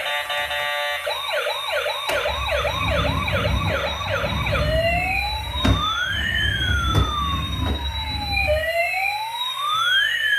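Electronic toy emergency vehicle's siren: a quick yelp sweeping up and down about three times a second, then changing to a slower rising-and-falling wail. A low rumble and a few sharp clicks run under it.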